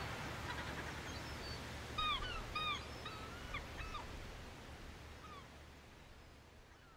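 A series of short, arching animal cries, repeated about a dozen times over a soft even hiss, the whole fading out steadily.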